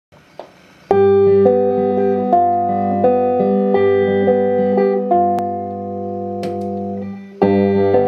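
Electric guitar played through a Phoenix Fuzz Driver boost/fuzz pedal: chords struck and left to ring, changing every second or so with a fairly clean, sustaining tone. The chords fade out, and a new chord is struck near the end.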